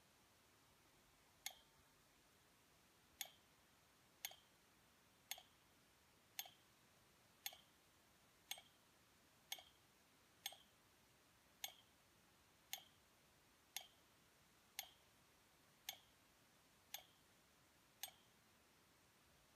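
Sheet counter kicker for a bookbinding machine firing with a short, sharp click about once a second, sixteen times; each click is the kicker's stroke as the counter passes every tenth sheet.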